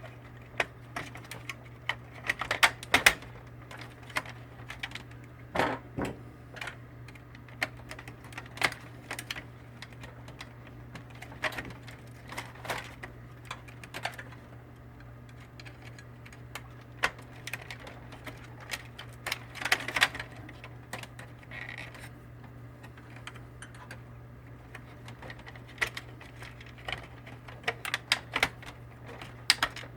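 Irregular plastic clicks and taps, some in quick clusters, from the HP M402 laser printer's cooling fan and bracket being worked into place by hand, over a steady low hum.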